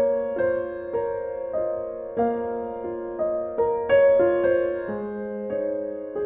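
Soft background piano music, single notes and chords struck about every half second and left to ring.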